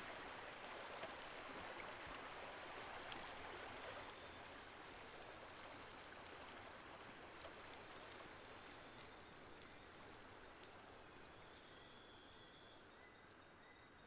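Faint forest ambience: a soft rush of running water for the first few seconds, then a steady high-pitched insect drone, with more insect calls joining, including a short repeated chirp near the end.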